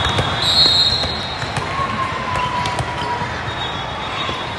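Volleyball gym during play: a steady murmur of crowd and players with scattered light knocks of ball and court. A short high squeak comes near the start and a fainter sliding one around two seconds in.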